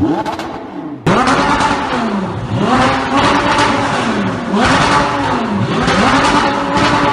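A sports car's engine being revved repeatedly through an Armytrix aftermarket performance exhaust, the pitch climbing and falling about once a second. About a second in, the sound cuts abruptly from a quieter engine sound to the loud revving.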